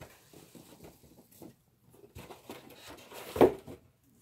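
Rustling and small ticking handling noises as packaging and a large softcover book are moved about, with one louder knock about three and a half seconds in.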